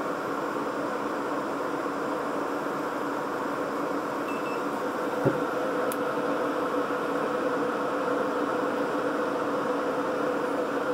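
Off-grid MPP Solar LV5048 inverters running under a heavy household load of about 7 kW, their cooling fans blowing with a steady buzzing hum. A single knock about five seconds in.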